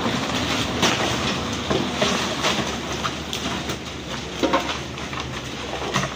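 Large wet fish sliding and dropping off the back of a truck onto a heap of fish on wet pavement: irregular slaps and thuds, a few sharper ones about two, four and a half and six seconds in, over a steady low hum.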